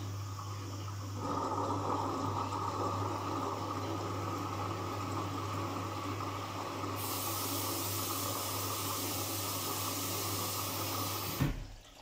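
Front-loading washing machine taking in water: water rushes into the drum over a steady low hum, growing louder about a second in and hissing more brightly from about seven seconds. Near the end the flow cuts off abruptly with a short thump.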